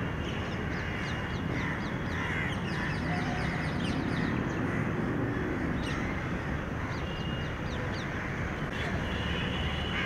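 Crows cawing harshly, with smaller birds giving rapid short high chirps through the middle, over a steady low background rumble.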